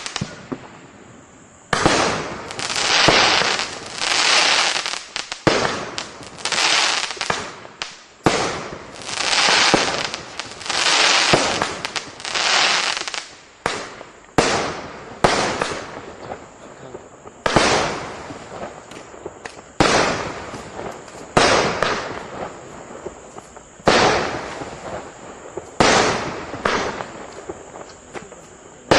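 Consumer firework barrage firing a run of shots, about one every one to two seconds. Each is a sharp report followed by about a second of fading hiss, with a few smaller pops between them.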